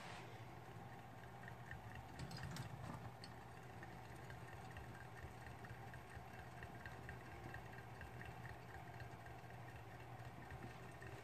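Hamster running in its exercise wheel: a faint, evenly paced ticking over a low steady hum, with a brief rustle about two seconds in.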